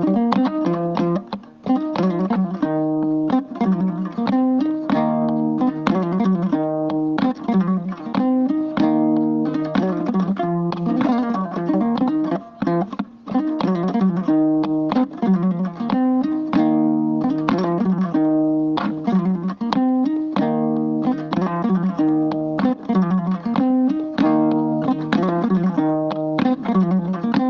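Hoddu, the Fulani skin-topped plucked lute, playing a fast, repeating melodic figure of plucked notes, with no singing.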